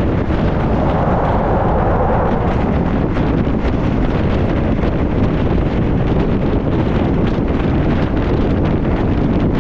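Wind rushing over the microphone at the open window of a moving passenger train, over the steady rumble of the train running along the track. The rushing grows brighter for a couple of seconds near the start.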